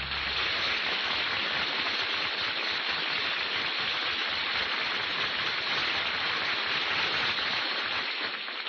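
Studio audience applauding, a steady wash of clapping that fades away near the end.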